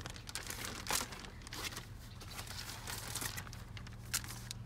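Clear plastic bag crinkling and rustling in irregular bursts as sheets of stickers are handled and slid out of it, over a faint steady low hum.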